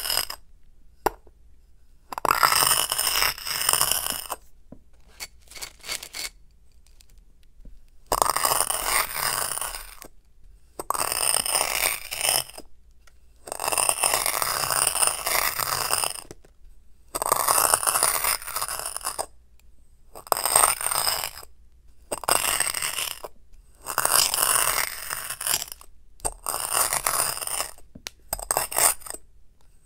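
Kinetic sand crunching and grating as a glass dish is pressed down onto a sand-covered glass cup, grains grinding between the two glass surfaces. There are about ten gritty strokes, each a second or two long, with short pauses between them.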